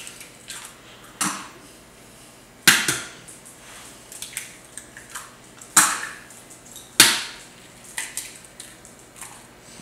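Eggs being cracked one after another into a ceramic bowl: several sharp shell cracks, the loudest three a few seconds apart, with fainter shell and handling clicks between them.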